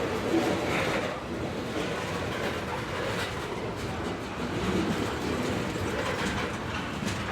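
Slow-moving train rolling past, a steady rumble of wheels on rail with irregular clatter and faint squeals from the cars.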